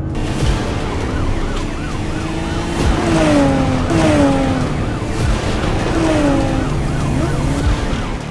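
Police car siren wailing with a quick, repeated rise and fall over a running car engine. Several sliding, falling tones stand out between about three and seven seconds in.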